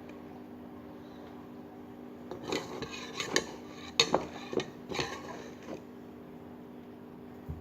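A small spoon stirring glue-and-activator slime in a bowl, clinking and scraping against the bowl in a run of strokes from about two seconds in to nearly six seconds in.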